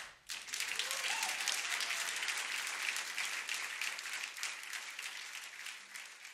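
Audience applause that starts a moment after a short sharp hit, with many hands clapping in a dense patter that slowly fades out.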